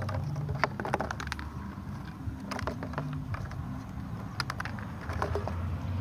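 Plastic bottles handled and knocked in a plastic tub: scattered clicks and crackles in several short clusters, over a steady low rumble.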